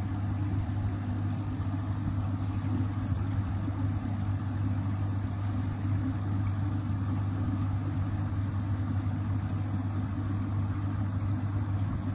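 Aquarium air pump running with a steady low hum, over an even hiss of air bubbling in the tank.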